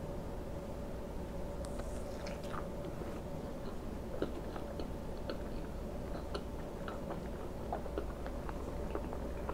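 Close-miked chewing of a syrup-coated breakfast sausage patty, with wet mouth clicks and smacks scattered throughout, over a steady low hum.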